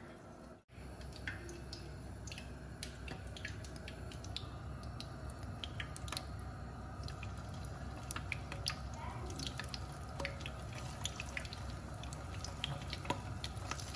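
Hot oil crackling in a frying pan, with scattered sharp pops that come more often as cornflour-coated cauliflower florets fry in it.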